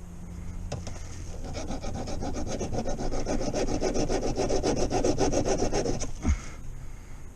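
Hand file rasping quickly back and forth over a fresh weld on a steel gear shifter, smoothing the welded-on bolt. It starts about a second and a half in and stops about six seconds in, followed by a single thump.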